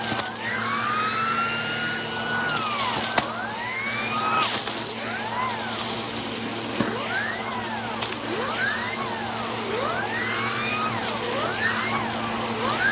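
Vacuum cleaner running over a rug, its motor whine rising and falling in pitch about once a second as the nozzle is pushed and pulled, with a few short bursts of crunchy debris rattling up the hose.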